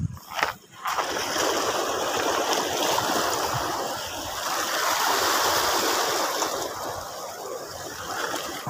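Sea water washing and lapping against a rocky shore: a steady rushing that swells around the middle and eases off toward the end.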